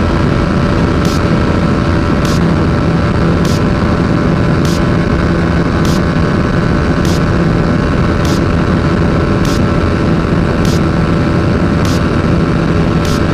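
Motorcycle engine held at high revs near top speed, running steadily with heavy wind and road noise. A short, faint high tick repeats about every second. The bike is topping out around 162 km/h, which the rider takes for a problem that could be the exhaust or the chain.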